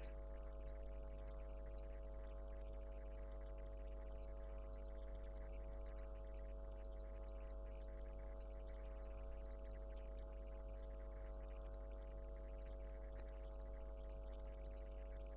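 Steady electrical hum. It is a constant drone of several unchanging tones with no other sound.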